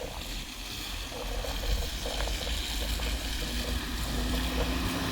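Car driving: a steady low road rumble under a hiss of tyre and wind noise, slowly growing louder.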